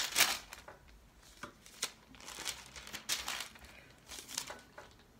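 Thin pages of a well-worn Bible being leafed through: about six separate page turns, each a short papery rustle.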